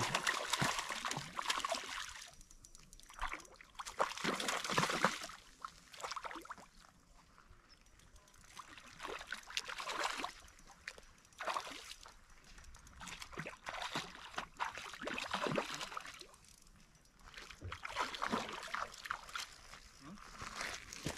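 A hooked trout splashing and thrashing at the water's surface in repeated bursts of a second or two, with quieter gaps between.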